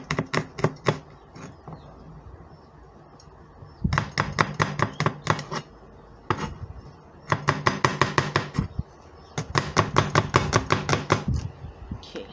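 Kitchen knife chopping garlic cloves on a cutting board: quick runs of rapid knocks, about six a second, in four bursts with short pauses between.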